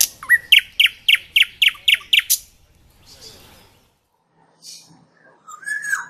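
A nightingale singing: a fast run of sharp, repeated notes, about four a second, for the first two seconds or so, then a quieter pause, and a single whistled note near the end.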